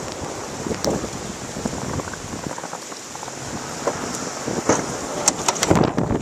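Ford F-150 pickup plowing snow in a blizzard: a steady noisy rush with wind buffeting the microphone, broken by irregular clatter and knocks that grow thicker and louder in the last couple of seconds.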